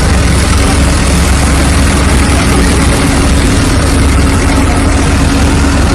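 A loud, steady engine-like drone with a deep rumble and one constant hum tone, unchanging throughout.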